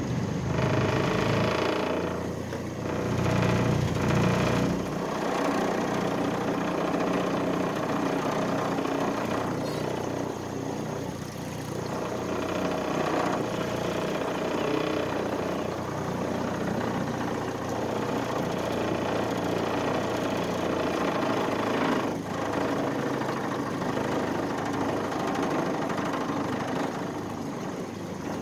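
Boat's outboard motor running at low speed, a steady drone that is louder and deeper for the first few seconds, then even.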